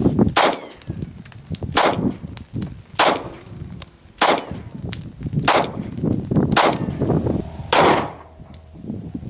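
Smith & Wesson 4006 TSW .40 caliber semi-automatic pistol fired seven times in slow, steady single shots about a second and a quarter apart.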